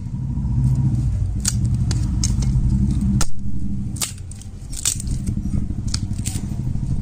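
A motor vehicle engine hums low and steady, then drops away sharply about three seconds in. Over it come sharp cracks and snaps as a dry palmyra frond stalk is split by hand.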